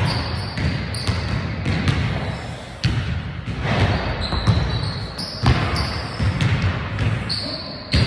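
Basketballs bouncing on a hardwood gym court: irregular thuds, several a second at times, echoing through the hall.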